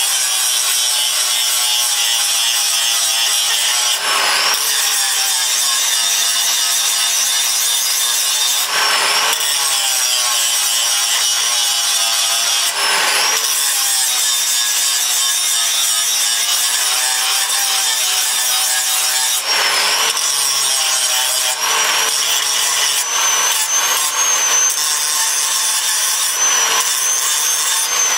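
Electric angle grinder running and grinding steel off the end of a lawn mower blade: a loud, steady high whine over a hiss, dipping briefly every few seconds as the wheel bears on the edge. Metal is being taken off the heavy side, a little at a time, to bring the blade into balance.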